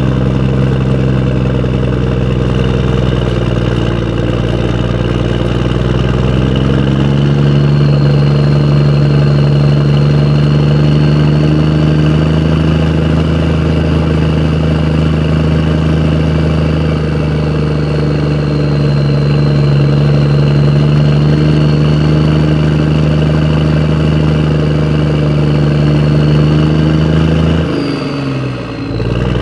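Motor vehicle engine running steadily, with a thin high whine over it; its note rises a little about seven seconds in. Near the end the sound dips briefly, its pitch falling and coming back up.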